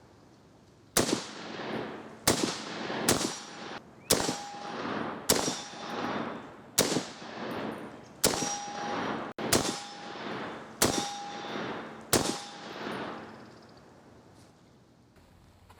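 DPMS LR-308 semi-automatic rifle firing .308 Winchester: ten shots at an uneven pace of roughly one a second, each a sharp crack with a long echoing tail. A brief ringing tone follows several of the shots.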